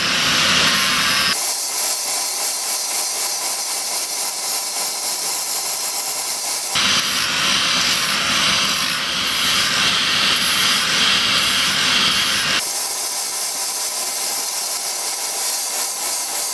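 Angle grinder grinding the forged steel ball end to smooth it, a steady loud hissing grind. The sound changes abruptly a few times, as if cut between takes.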